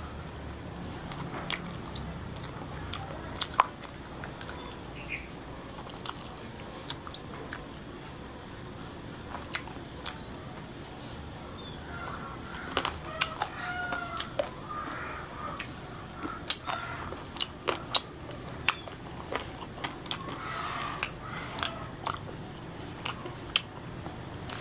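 Close-up eating sounds: wet chewing and sharp lip smacks as sauced grilled chicken wings are eaten by hand, with sucking of sauce off the fingers. The smacks come as short clicks throughout, more often in the second half.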